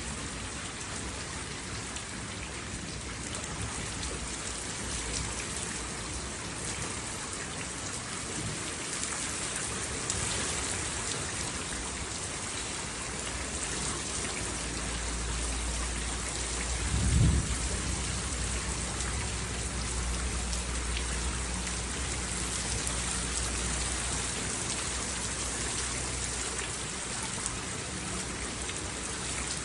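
Steady rain falling, with a low roll of thunder that builds about halfway through, peaks in one sharp loud clap, then rumbles on and dies away well before the end.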